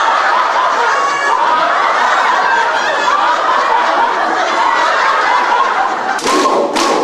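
A crowd of people laughing together, many voices overlapping: the deliberate group laughter of a laughter yoga exercise. Near the end, sharp group claps begin.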